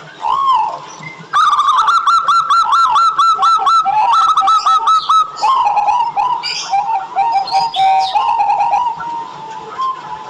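Zebra doves (local perkutut) singing: a short coo, then about a second and a half in a fast run of repeated rising-and-falling notes that lasts about four seconds, followed by slower, lower coos.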